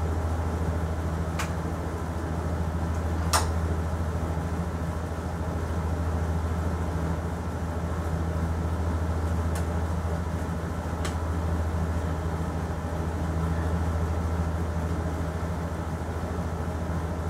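Steady low mechanical hum from a room machine, with four light clicks of small parts being handled spread through it, the sharpest about three seconds in.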